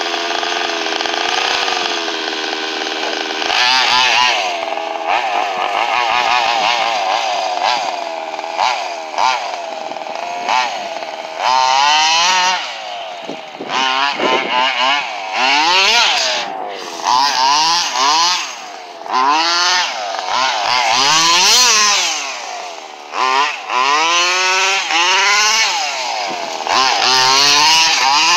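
Radio-controlled truck's motor running, holding a steady pitch for the first few seconds, then revving up and down over and over as the truck accelerates, brakes and turns.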